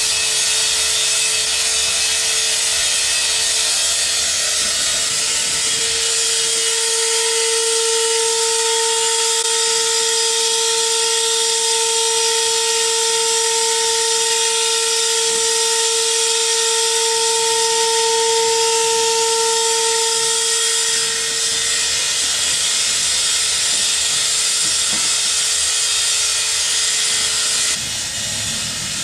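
Live noise music: a loud, dense wall of hissing noise, with a held mid-pitched tone and a higher one above it that swell in about six seconds in and fade out around twenty seconds in. Near the end the top of the hiss drops away and it gets a little quieter.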